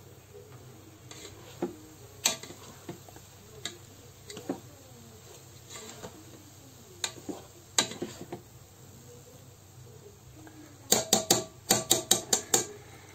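Slotted plastic spatula stirring cooked rice in a multicooker's inner pot: soft scraping with scattered light clicks, then near the end a quick run of about ten sharp taps of the spatula against the pot, the loudest sound.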